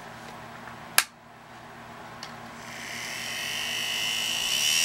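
A single sharp click about a second in, then a small brushed DC motor from a little vacuum starts up on bench DC power and spins up, its whine growing steadily louder.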